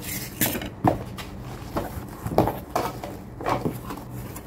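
Cardboard box being opened by hand: flaps rustling and a tight cardboard insert being worked out, a string of short scuffs and knocks about every half second.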